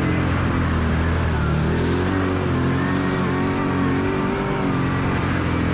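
Kawasaki KVF 750 Brute Force ATV's V-twin engine running under varying throttle, its pitch rising and falling repeatedly. A steady rushing noise runs underneath.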